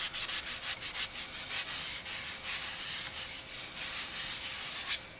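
Wax-infused steel wool scrubbing along a screwdriver's steel shaft: quick back-and-forth rubbing strokes, several a second.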